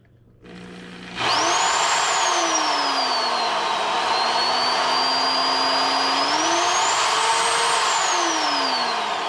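Electric drill spinning up with its bit chucked tight, the motor whine rising fast, dipping and climbing again as the trigger is worked, then falling away as it winds down near the end. The bit runs true, with no play and no vibration.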